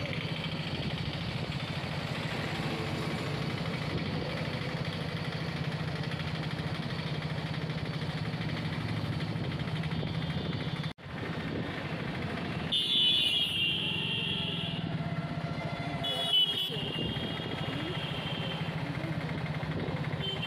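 Motor vehicle engine running steadily on the move, with road traffic noise. After a brief break about halfway through, there are a few short high-pitched tones.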